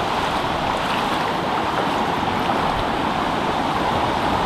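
Sea surf washing steadily, one continuous rush of waves with no single break standing out.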